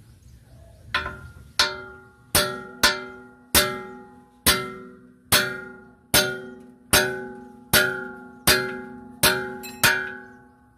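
Hammer blows on a steel bar held against a truck's drum-brake assembly: about thirteen sharp metal strikes, a little under one a second, each ringing and fading. They start about a second in.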